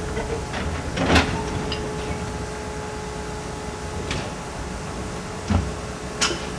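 Narrow-gauge steam train standing at a platform: a steady low rumble with a faint constant whine. It is broken by a few sharp metallic clanks and knocks, the loudest about a second in, and a dull thump and another clank near the end.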